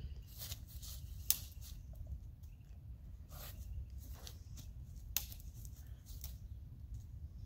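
Dry tree twigs snapping and crackling in scattered sharp bursts as a boxer dog bites and tugs at low branches, over a faint steady low rumble.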